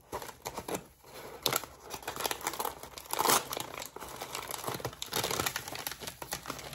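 Kraft paper wrapping being unfolded and handled, crinkling and rustling irregularly with many sharp little crackles.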